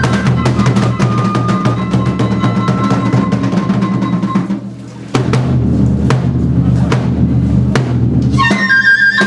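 Kagura shrine music: rapid taiko drumming with a bamboo flute melody on top. The drumming eases briefly about four and a half seconds in, then picks up again, and the flute comes back in near the end.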